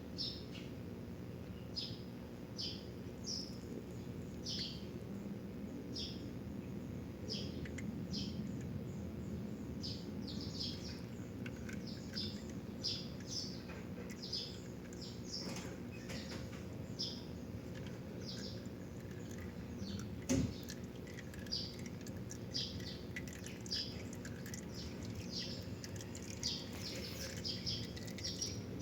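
Small birds chirping over and over in short, falling chirps, above a steady low hum from an idling engine. A single sharp knock comes about twenty seconds in.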